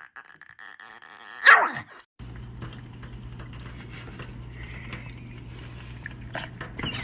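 A dog gives one short howl that drops sharply in pitch, about a second and a half in. After that comes a steady low hum with faint scattered sounds.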